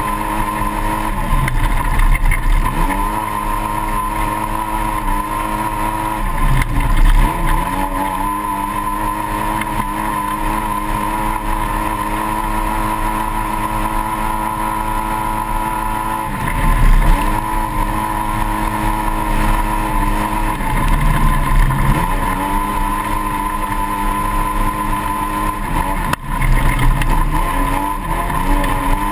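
A 2008 Polaris RZR side-by-side's twin-cylinder engine runs hard, heard from on board. The revs hold steady, then dip briefly and climb again about five times as the buggy lifts off and accelerates through corners.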